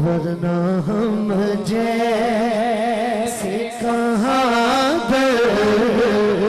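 Male naat reciter singing a long, ornamented line without words breaking it, his voice wavering and sliding in pitch, amplified through a microphone. A steady low drone holds underneath.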